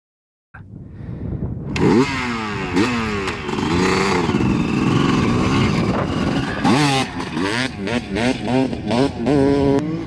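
Honda CR250 dirt bike's single-cylinder two-stroke engine being revved, its pitch climbing and falling with each twist of the throttle, then a run of quick sharp rev blips near the end.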